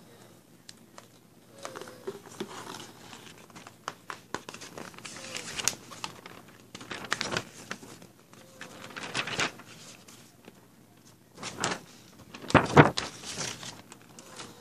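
Paper posters rustling and crinkling as they are handled and sorted through, in irregular bursts, the loudest a little before the end.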